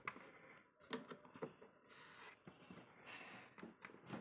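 Near silence: room tone with a few faint, light taps.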